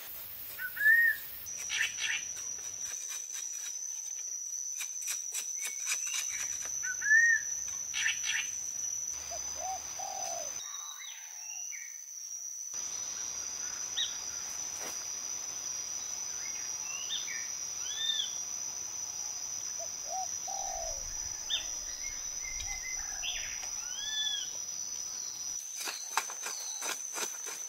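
Forest ambience: an insect's steady high buzz with birds chirping now and then. Sharp knocks of a hand tool chopping into a packed clay wall come in clusters near the start, about 7 seconds in, and again near the end, and are the loudest sounds.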